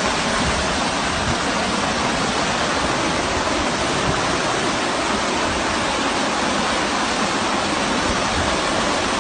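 Muddy floodwater rushing fast through a street: a steady, unbroken noise of churning water.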